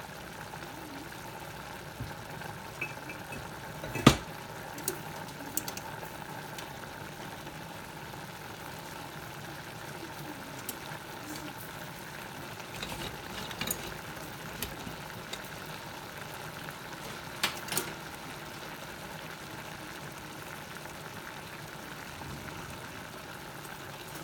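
Chicken-and-vegetable stir-fry sizzling steadily in a stainless steel pan on the stove, with a few sharp knocks, the loudest about four seconds in and another near seventeen seconds.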